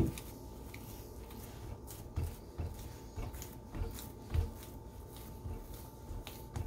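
Soft dull thumps and light rubbing as palms press oiled pizza dough flat on a cast-iron pizza pan, a few irregular presses.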